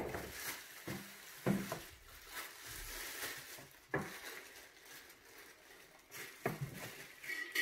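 Plastic packaging film rustling and crinkling as it is handled and pulled off, with a few light knocks at irregular intervals.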